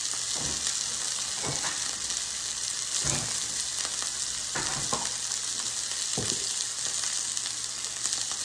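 Chicken breasts sizzling in oil in a skillet as they brown, a steady hiss. A few soft knocks sound in the background.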